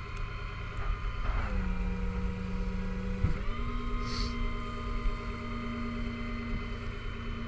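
Vehicle engine idling steadily. Its speed drops about a second in and steps back up about two seconds later. There is a short hiss near the middle.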